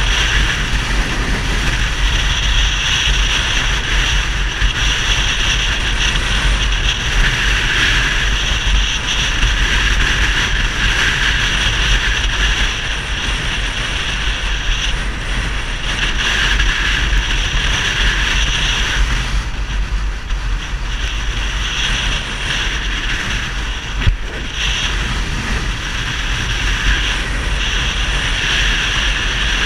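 Yamaha XTZ 250 Ténéré's single-cylinder four-stroke engine running through a Roncar 2Way aftermarket exhaust, steady with slight swells in pitch, with wind noise on the microphone. A single sharp tick about 24 seconds in.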